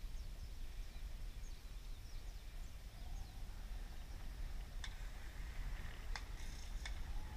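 Outdoor ambience: a low, steady rumble with faint, brief bird chirps and a few sharp clicks in the second half.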